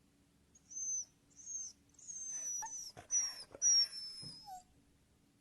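A dog whimpering in a series of very high, thin whines that fall slightly in pitch: two short ones, then a longer run of whines with a few soft clicks about two seconds in.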